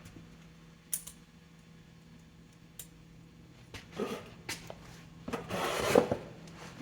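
Workshop handling noises: a few light clicks and knocks, then a rubbing, scraping sound lasting about a second near the end, the loudest part.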